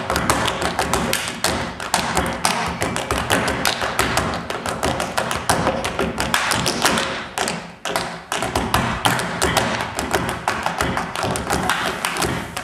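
Tap shoes of a group of tap dancers striking the stage floor in fast, dense rhythms, breaking off briefly a little past the middle, with music underneath.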